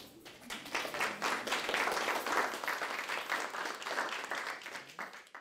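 Audience applauding: dense, many-handed clapping that builds about half a second in, thins toward the end and then cuts off abruptly.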